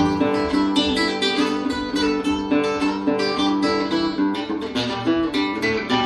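Instrumental music led by a plucked and strummed acoustic guitar, with quick notes several times a second over a held low note.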